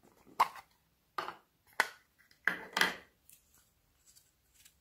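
Sharp clicks and knocks as small plastic containers are handled and a bottle cap is twisted open, about five loud ones in the first three seconds, then a few faint ticks.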